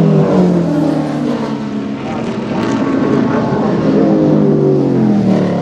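Racing touring car engine running hard on track, its note dropping sharply at the start and again near the end and climbing in between, as with gear changes.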